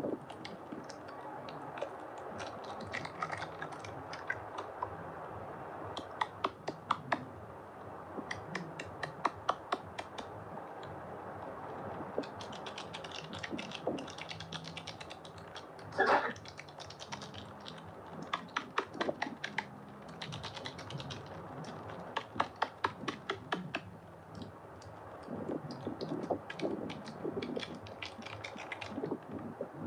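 Hard bar soap being cut, making crisp, rapid clicking and crackling in short runs, with one louder scrape about sixteen seconds in.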